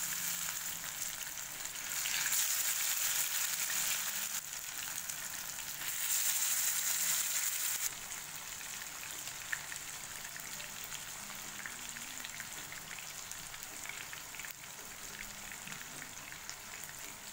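Fish slices shallow-frying in hot oil in a non-stick pan: a steady sizzle with scattered crackles, louder in two stretches in the first half and softer from about eight seconds on.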